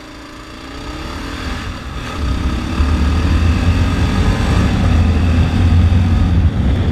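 Motorcycle engine accelerating, its pitch climbing through the first two seconds and growing steadily louder, then a loud low rumble of engine and wind noise as the bike runs on at speed.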